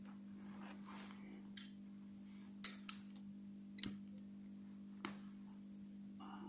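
Pliers and small metal fishing-rig parts being handled, giving about five short, sharp clicks, the loudest a little over two and a half seconds in, over a faint steady hum.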